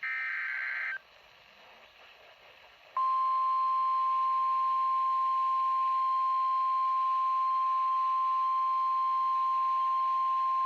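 Emergency Alert System activation on NOAA Weather Radio. It opens with a one-second burst of SAME digital header data, then a short pause, and about three seconds in the single steady 1050 Hz warning alarm tone begins and holds. The tone signals that a warning-level alert, here a severe thunderstorm warning, follows.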